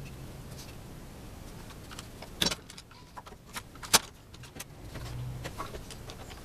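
Scattered clicks and knocks from workshop handling, two sharper ones about two and a half and four seconds in, over a faint low hum.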